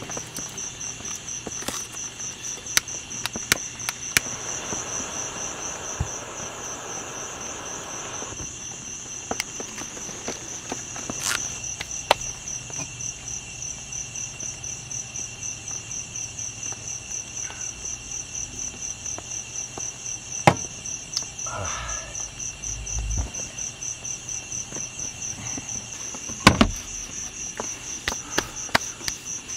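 Crickets trilling steadily in a fast, even pulse. Scattered small clicks and knocks of things being handled on a table sound over the trill, with a louder thump near the end.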